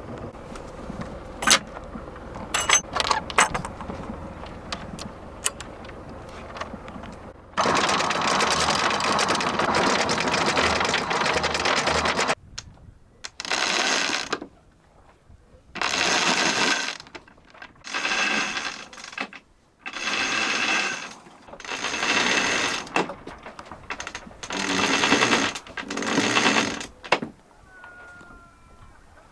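Sailboat anchor windlass hauling in the anchor chain. A few sharp metallic clinks come first, then several seconds of steady running, then about eight short bursts of running with pauses between them.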